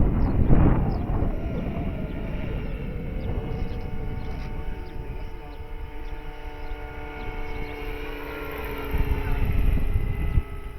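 Large electric RC scale helicopter (Eurocopter BK117 model) in flight: a steady whine from its electric motor and rotors, with wind buffeting the microphone at the start and again near the end.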